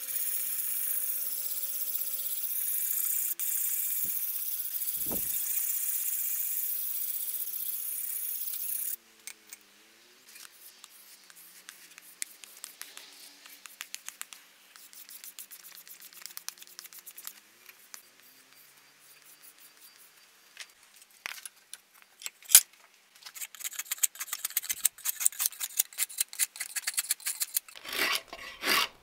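Antique drawknife's steel blade, clamped in a vise, being sharpened by hand with back-and-forth strokes along its edge. The first third is a steady hiss, then come quicker, quieter strokes. Near the end, louder rasping strokes as the sharpened drawknife shaves wood.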